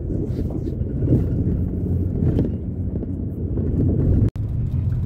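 A car driving on a dirt road, heard from inside the cabin: a steady low rumble of engine and tyres. The sound cuts out for an instant about four seconds in.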